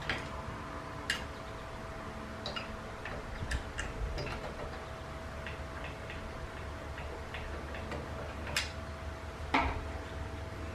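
Irregular small clicks and taps of metal hardware being handled while ceiling fan blades are fitted and screwed onto the fan, over a faint steady hum.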